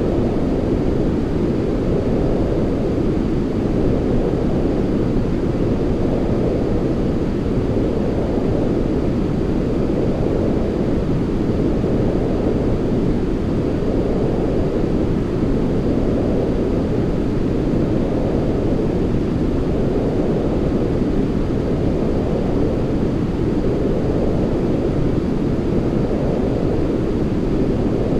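Steady deep rushing noise from a white-noise sleep track, weighted toward low pitches, with a gentle swell every three to four seconds.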